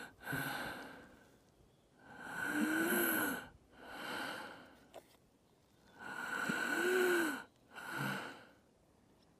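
A person's heavy, noisy breathing: two long drawn breaths with a slight rise and fall in pitch, each followed by a shorter breath, about four seconds apart.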